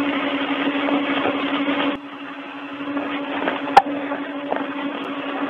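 Audio from a Russian cosmonaut's spacesuit helmet microphone during a spacewalk: a steady hiss with a low hum, which drops sharply about two seconds in. Faint knocks and one sharp click near the end follow, as the suit touches things. The stiff pressurized suit carries these sounds to the microphone.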